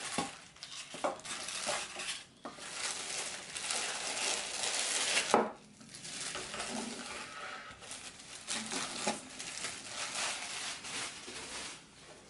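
Clear plastic bag crinkling and rustling as a boxed sandwich maker is slid out of its wrapping. Several sharp knocks come through it, the loudest about five seconds in.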